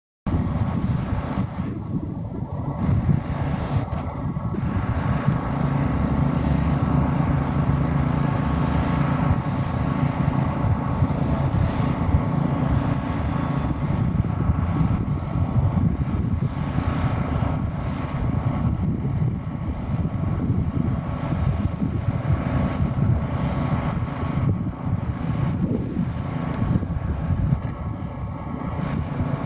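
Wind buffeting the microphone in a constant low rumble, over a steady mechanical drone with faint held tones.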